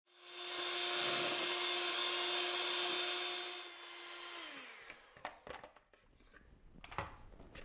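Electric hand mixer beating cake batter in a bowl: a steady motor hum that drops in pitch and winds down about four seconds in as it is switched off. A few light knocks follow.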